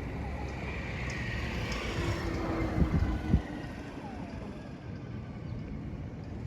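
A vehicle passing, swelling and fading about two seconds in, over wind rumbling on the microphone, with a couple of low thumps a little after three seconds.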